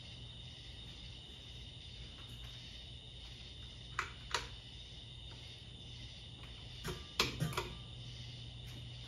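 Hampton Bay Roanoke ceiling fan running slowly on a failing capacitor, its motor humming steadily. Two sharp clicks come about four seconds in and a quick cluster of clicks near seven seconds.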